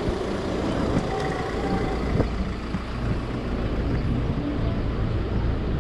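City street ambience: a steady low rumble of road traffic, with one sharp knock about two seconds in.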